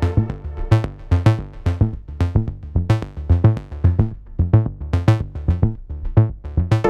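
Deep tech beat played back from a DAW: a steady drum-machine kick about twice a second under short plucked synth notes from the u-he Diva synthesizer's 'Millenium Pluck' preset.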